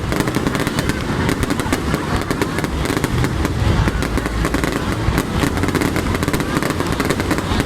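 Fireworks going off in a dense, unbroken run of bangs and crackles over a low rumble.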